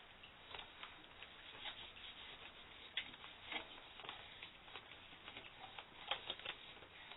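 Light, irregular clicks and taps of hands handling an object, the sharpest about three seconds in and a cluster just after six seconds.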